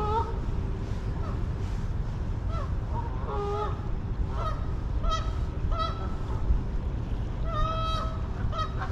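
Geese honking: a series of short honks from about three seconds in, then a longer, drawn-out honk near the end, over a steady low rumble.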